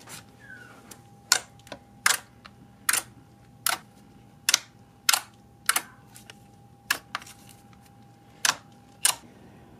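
Thick green slime being poked and folded with fingertips, giving a dozen or so sharp pops and clicks of air pockets bursting, about one to two a second, stopping shortly before the end.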